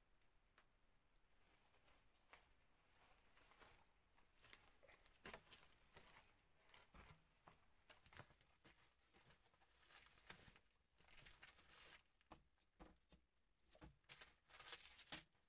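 Near silence with faint, irregular rustling and crackling, like leaves and twigs being handled, plus a faint steady high-pitched tone that stops about halfway through.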